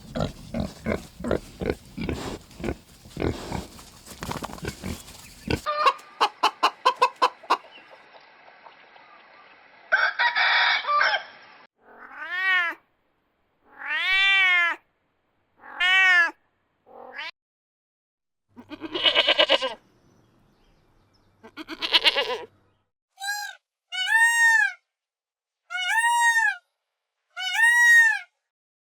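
Farm animal calls in a series of separate takes: a fast stutter of short pulses for the first few seconds, then single calls that rise and fall in pitch, ending with five short calls about a second apart.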